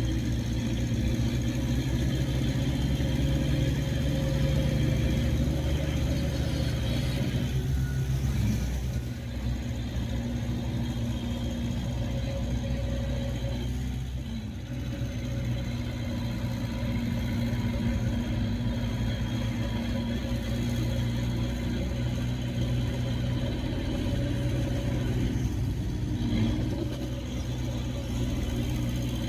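Heavy diesel engine of earth-moving machinery running steadily, its note dropping about a third of the way in, dipping briefly around halfway, then steadying again.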